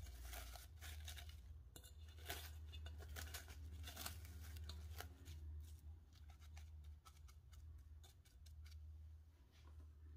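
Plastic cling film crinkling and rustling in a series of faint, irregular crackles as hands spread it and press it down onto the surface of orange cream in a metal saucepan.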